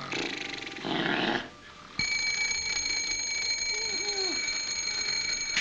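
Men snoring in their sleep, then about two seconds in a mechanical alarm clock's bell starts ringing and keeps on ringing steadily.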